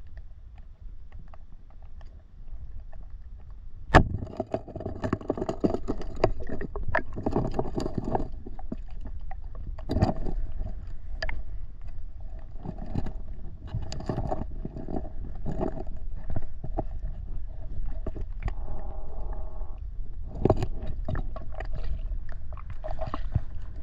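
Muffled underwater sound from a camera held under murky river water: a steady low rush of water with many irregular knocks and clicks against the housing, and one sharp, loud knock about four seconds in.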